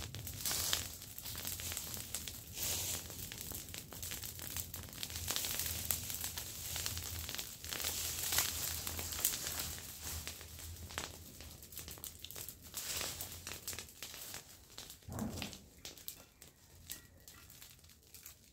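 Dry branches and brush rustling, scraping and crackling as they are dragged and piled onto a small burning brush pile, with footsteps on dry leaves; the rustling grows quieter over the last few seconds.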